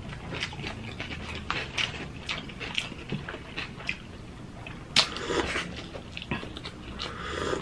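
Close-up eating sounds: wet chewing and lip smacks as rice is eaten by hand, with sips of coffee from a mug.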